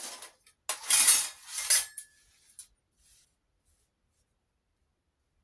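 Small steel tacks and bits of scrap metal clinking and clattering together as they are handled, with a few bursts in the first two seconds.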